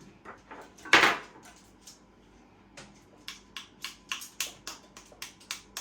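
A single sharp knock, then from about halfway in a run of light, even taps, about four a second: an egg being tapped against the rim of a bowl to crack its shell.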